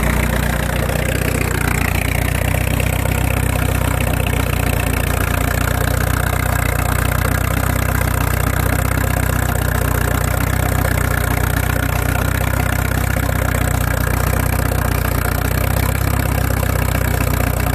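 1952 Case DC tractor's four-cylinder engine running steadily, with a higher tone falling in pitch over the first two seconds.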